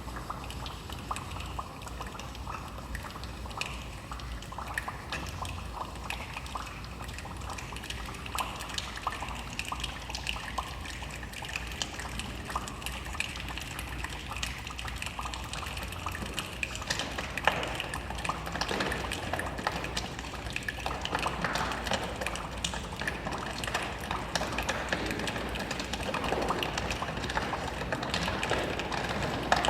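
A children's choir imitating rain with their bodies: a dense patter of small clicks that grows louder toward the end, like a shower building up.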